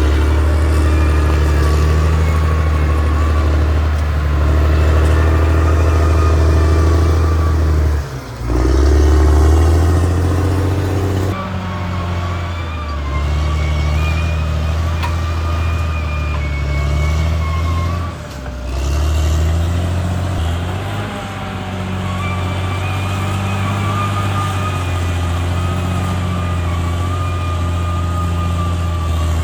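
CAT D6R XL bulldozer's diesel engine running steadily under working load, with a high whine over the low engine drone. The sound dips briefly about 8 and 18 seconds in.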